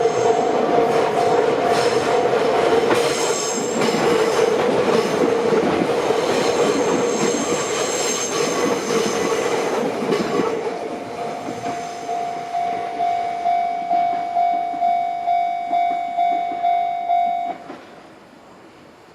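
A train passes over a Japanese railroad crossing while the crossing's electronic warning bell rings. The train noise dies away about ten seconds in, leaving the bell ringing at about two strokes a second. The bell stops suddenly about seventeen seconds in, as the crossing clears.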